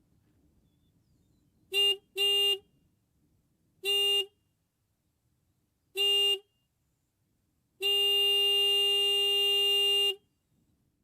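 Horn of a Triumph Daytona 955i motorcycle sounded as four short honks, then one long honk of about two seconds.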